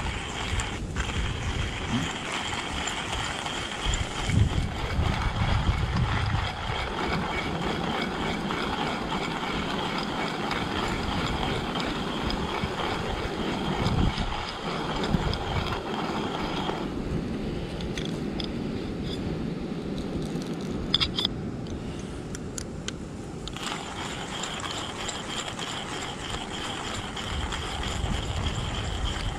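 Stainless-steel hand-crank coffee grinder grinding coffee beans: a continuous crunching, rasping grind of the burrs as the crank is turned.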